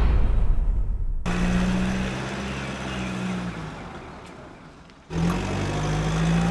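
Vehicle engine running as a steady low hum. It starts abruptly, fades away, then cuts back in suddenly about five seconds in.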